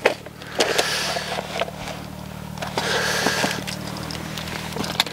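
Clear plastic tackle packets rustling and crinkling as they are handled, in two spells of about a second each, the second about three seconds in, with small clicks between them, over a steady low hum.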